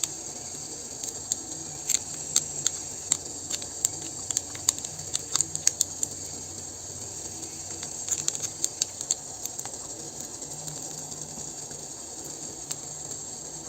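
Pot of water at the boil: a steady hiss with many small irregular ticks and pops, as batter is piped into it to cook noodles.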